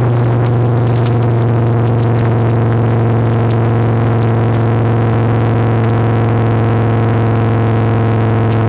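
Chevy pickup truck driving at a steady speed on a dirt road, heard from underneath: the engine and exhaust drone at one constant pitch, with scattered ticks of road and gravel noise.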